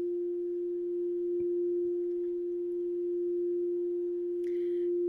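A singing bowl ringing in one steady, pure tone that holds without fading.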